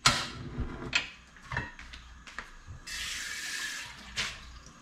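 Tabletop gas stove being lit under a pot: a few clicks and knocks, then about a second of steady gas hissing that cuts off sharply, and one more knock near the end.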